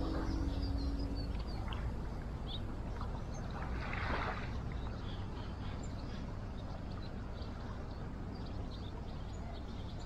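Outdoor waterside ambience: a steady low rumble with faint, scattered bird chirps, and a brief soft rush of noise about four seconds in.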